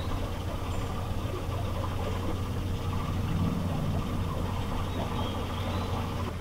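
Steady low hum and rumble of an electric narrowboat under way at slow cruising speed, with a couple of faint high bird chirps.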